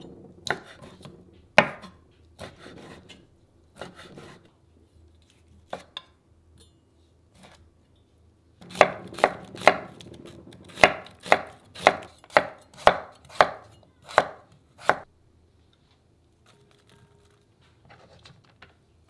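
Kitchen knife cutting on a wooden cutting board. There are a few scattered cuts through blanched cuttlefish in the first seconds, then a quick run of about a dozen cuts slicing an onion from about nine to fifteen seconds in.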